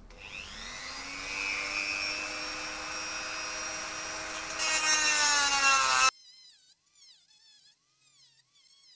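Handheld rotary tool spinning up with a rising whine and running steadily, then cutting into a camera mount on an RC car about four and a half seconds in, louder and harsher, before it stops suddenly about six seconds in.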